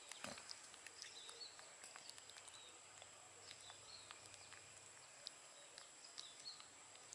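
Near silence: faint outdoor background with a thin, steady high-pitched hum and scattered faint chirps and small clicks.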